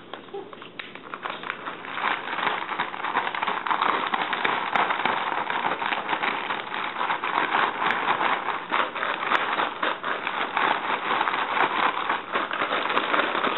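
Large plastic bag of chocolate-and-peanut-butter-coated cereal and powdered sugar being shaken closed: the bag crinkles and the cereal pieces rattle against each other in a continuous crackling rustle. It grows louder about two seconds in.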